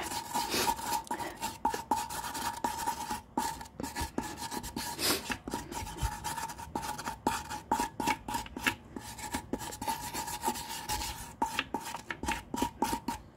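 Hand wire brush scrubbing the inside of a car wheel: quick, irregular rasping strokes, several a second. A faint steady high tone runs underneath.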